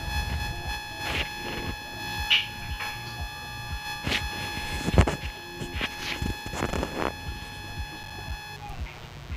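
A steady, high buzzing tone with a stack of overtones, cut through by several sharp clicks and knocks, the loudest about halfway through. The tone stops shortly before the end.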